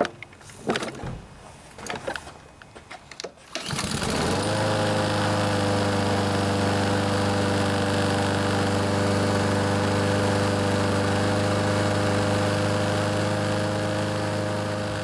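Honda GCV-series engine on a Troy-Bilt walk-behind lawnmower starting: a few knocks and clatter, then the engine catches about three and a half seconds in, its pitch rising briefly before it settles into a steady run.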